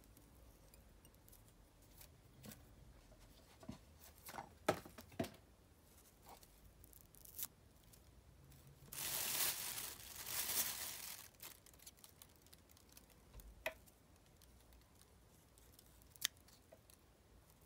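Close handling sounds of fly tying: scattered soft clicks as red deer hair is worked onto a hook in a vise, then a rasping rustle in two swells lasting about two seconds, the loudest sound. A couple of sharp clicks follow as small scissors trim the hair.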